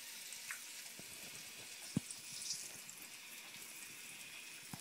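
Hot oil bubbling and sizzling around a peanut butter and banana sandwich deep-frying in a small saucepan: a steady hiss. A few light clicks come from a plastic spatula against the pot, the clearest about two seconds in.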